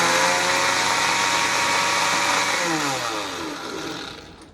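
Electric blender motor running at full speed, then switched off and spinning down, its pitch falling until it stops near the end.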